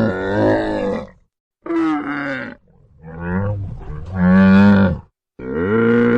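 A cow mooing: a run of low, drawn-out calls with short breaks between them, the last one starting near the end.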